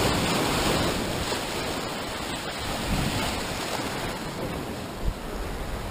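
Sea swell breaking and washing over shore rocks, a rush of white water that eases off over a few seconds.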